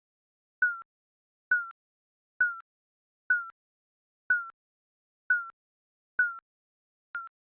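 Digital countdown timer beeping once a second: each beep is a short mid-pitched tone that dips slightly in pitch and starts with a click, with silence between beeps.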